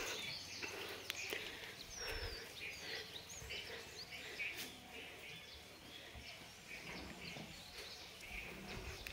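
Faint birdsong outdoors: scattered short chirps and a few brief whistled calls over low background noise.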